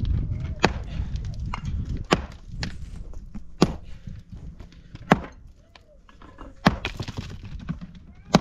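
Sharp, evenly spaced blows of a hand tool striking, about one every second and a half, with smaller knocks in between.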